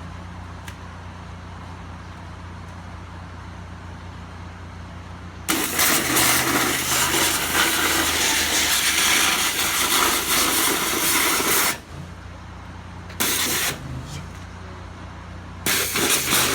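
8 gpm, 3500 PSI Hotsy pressure washer: its motor hums steadily while the high-pressure jet blasts a pumpkin in loud hissing bursts. One long spray of about six seconds starts about five seconds in, then a short blast follows, and another spray comes near the end.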